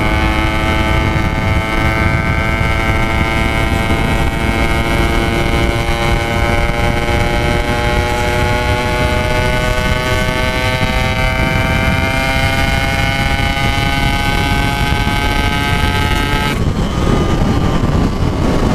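Yamaha RX-King's single-cylinder two-stroke engine pulling at road speed, its exhaust note rising slowly and steadily, then falling off suddenly about two seconds before the end, over wind and road rumble.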